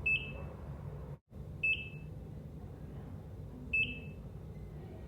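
ECG heart monitor beeping: three short, high-pitched beeps about two seconds apart, over a steady low hum. The sound cuts out to silence for an instant just after a second in.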